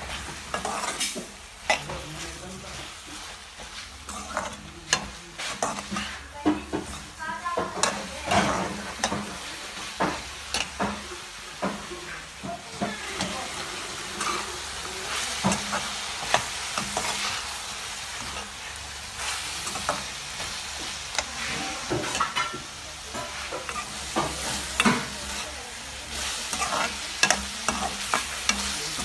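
Chopped brinjal, green chillies and tomato sizzling in oil in a kadai as a metal spatula stirs them, scraping and clicking against the pan at irregular intervals.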